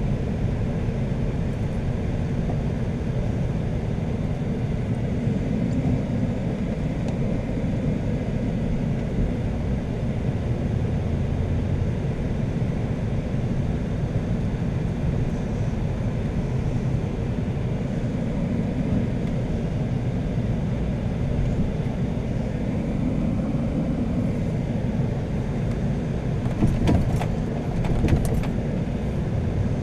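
Steady low rumble of a car's engine and tyres, heard from inside the cabin while driving slowly, with a few short sharp clicks near the end.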